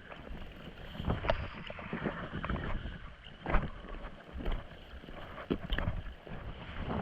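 Wind gusting against a stone shelter, with about half a dozen irregular knocks and clanks scattered through it.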